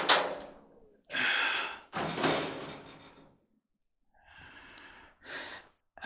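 A man's breathy exhales and sighs, four or five in a row with short gaps, the first and the one about two seconds in loudest.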